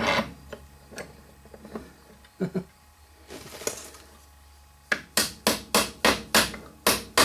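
Hammer striking a nail to drive stuck solder and cable out of a throttle-cable solder repair tool: faint knocks at first, then from about five seconds in a steady run of sharp strikes, about three a second.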